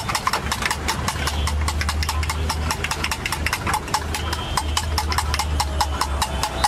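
Eggs being beaten in a steel bowl: a utensil clinks against the metal about six or seven times a second, over a steady low engine hum.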